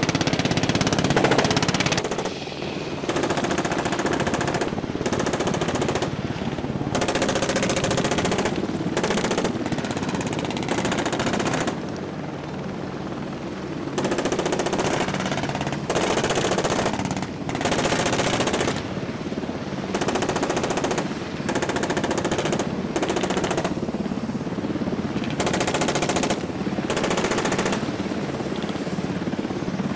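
Repeated bursts of automatic gunfire, each lasting a second or two, with short gaps between bursts.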